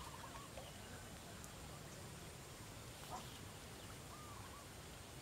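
Quiet outdoor ambience with a few faint, short bird calls: one near the start, another about three seconds in, and one more a second later.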